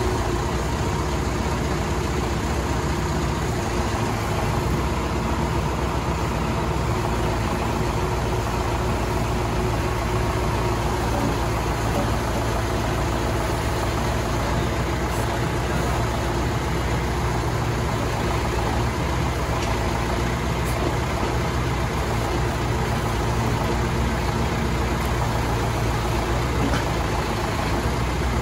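Engine idling steadily, a constant low drone with no change in speed.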